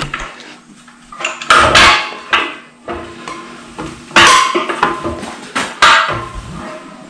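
Steel crossmember of a four-post car lift being slid down its post by hand, giving a series of metal-on-metal clanks and knocks as it catches over the lock notches; the loudest about four seconds in.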